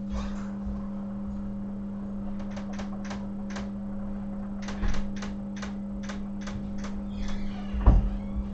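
Brush scrubbing an iPhone 8 logic board during cleaning with acetone, heard as rows of short light clicks, about three or four a second, in two runs separated by a brief pause. A steady low hum runs underneath throughout.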